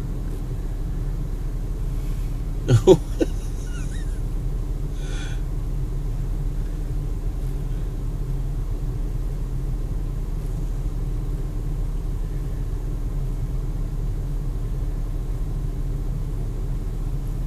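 Steady low hum of a car idling, heard from inside the parked car. A short vocal sound breaks in about three seconds in.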